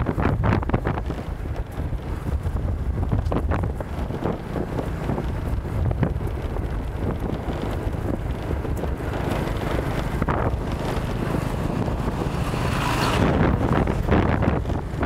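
Wind buffeting the microphone of a camera riding on a moving bike, over a low, rough road rumble; the rushing grows louder near the end.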